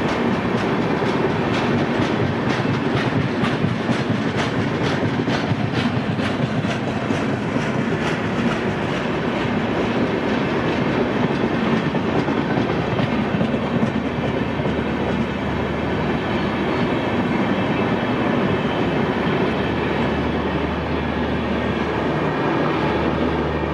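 Coaches of a passing express train rolling by, the wheels clattering rapidly over the rail joints in a continuous rumble; the clatter is sharpest in the first few seconds, and a low steady hum comes in near the end.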